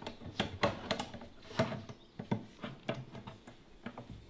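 A dozen or so irregular small clicks and knocks from metal spreader parts being handled: a stabilizer bar and bolt being fitted against the tubular steel frame of a lawn spreader.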